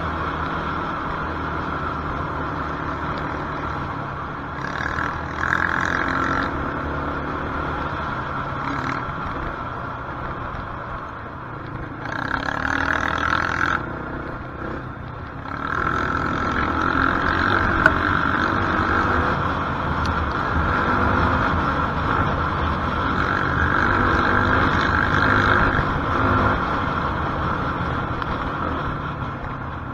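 Quad bike engine running under way, heard from on board, its pitch and level swelling as the throttle opens briefly about five seconds in, again around twelve seconds, and for a longer stretch through the second half.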